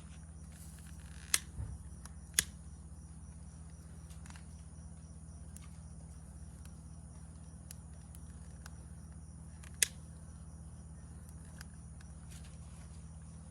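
Wood fire crackling with scattered small ticks and three sharp pops, two in the first few seconds and one later, over a steady high-pitched trill of crickets.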